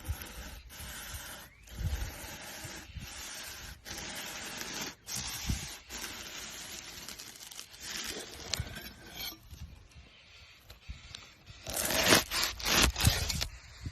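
Repeated scraping strokes, about one a second, with a louder, sharper run of scraping near the end.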